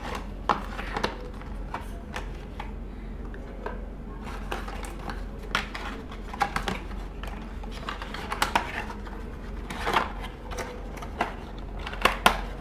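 Unpacking a boxed SSD: scattered clicks, taps and short rustles of the cardboard box and plastic tray being opened and handled.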